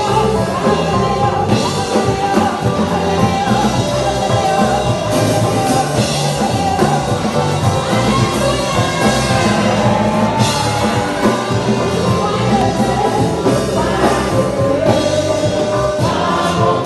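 Church congregation singing a lively gospel worship song together over band accompaniment with drums.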